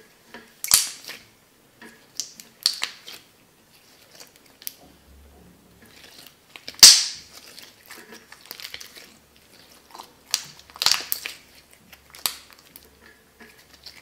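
Glue-free slime being kneaded and squeezed between the hands, trapped air popping out in sharp, irregular crackling snaps; the loudest snap comes about seven seconds in.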